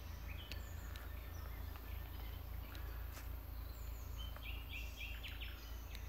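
Faint birdsong: short high chirps, with a quick run of notes near the end, over a steady low rumble.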